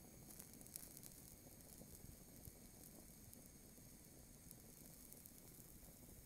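Faint hiss of a handheld gas torch and of burning plastic, with a scatter of small crackles and pops as the melting figurine burns, most of them in the first second.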